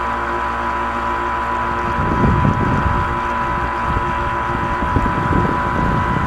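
Pro Boat Alpha Jet RC jet boat's motor and jet drive running at steady speed, a steady high whine heard from on board. Low buffeting rumbles from wind and water on the boat rise about two seconds in and again near the end.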